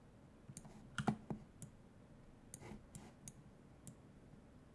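Computer mouse clicking, about ten short clicks at irregular intervals, the loudest few bunched about a second in.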